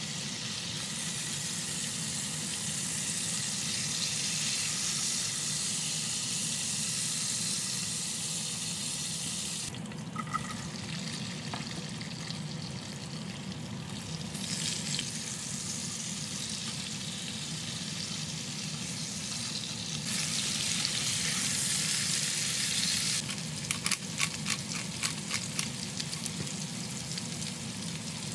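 Hot oil sizzling in a cast-iron skillet as chicken thighs and then sliced carrots and potato chunks fry. The sizzle drops away for a few seconds about a third of the way in, then returns louder. A quick run of clicks and taps comes near the end, as the food is stirred in the pan.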